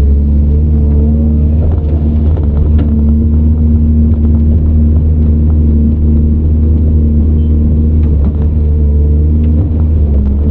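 Caterpillar 395 excavator's diesel engine running steadily under working load, a loud low hum with a level tone above it, heard from inside the operator's cab.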